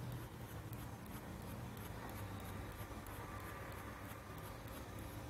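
Faint room background with a steady low hum and light scratchy rustling.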